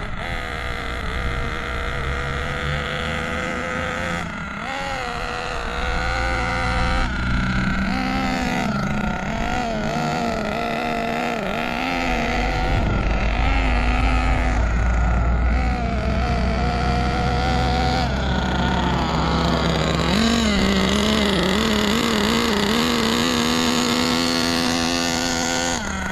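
Small two-stroke nitro glow engine of an RC buggy (an O.S. engine) running on a rich break-in tune, its pitch wavering up and down with light throttle as the buggy makes slow circuits.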